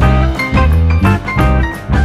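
Background music: an upbeat instrumental with plucked guitar, a pulsing bass line and a steady beat.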